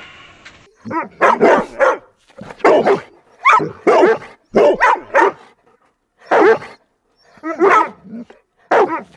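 A dog barking loudly, about a dozen short barks in irregular groups, starting about a second in.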